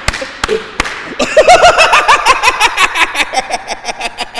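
Three hand claps in the first second, then laughter from about a second in: a quick, even run of short ha-ha pulses that starts loud and slowly fades.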